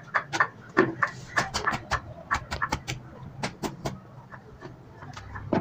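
Hands beating and clapping freshly cooked parottas on a griddle to fluff out their layers: a run of sharp, irregular slaps, several a second.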